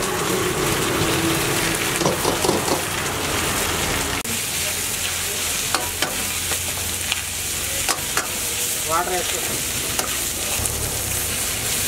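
Onions and green capsicum sizzling as they are stir-fried in a hot steel wok, a steady hiss, with the metal ladle scraping and clacking against the wok several times.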